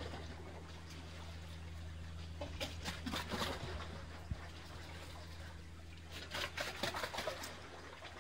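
Small waves lapping and splashing against concrete breakwater blocks, in two short bursts about two and a half and six seconds in, over a steady low hum.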